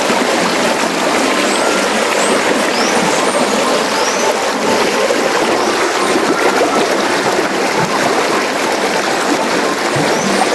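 Shallow river running fast over rocks and a stony riffle, heard close to the water: a loud, steady rush.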